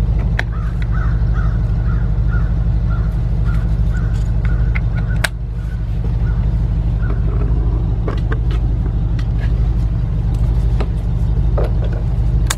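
A steady low engine hum throughout, with scattered sharp plastic clicks as the window switch connector and trim are handled, and a run of short high chirps in the first five seconds or so.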